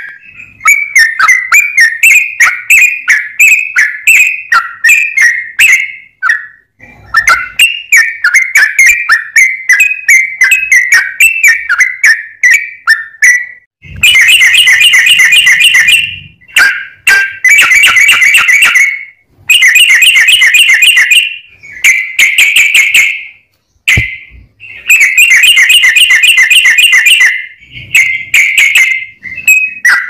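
Yellow-vented bulbul singing loudly in phrases of rapid whistled notes, separated by short pauses. About halfway through the phrases turn into denser, faster trilled runs.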